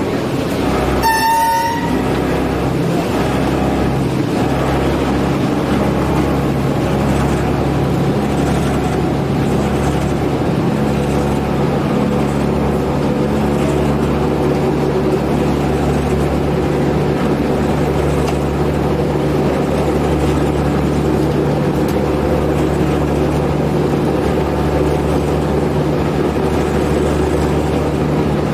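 Diesel railcar running along the track, heard from the driver's cab: a short horn toot about a second in, then a steady engine drone with wheel and running noise.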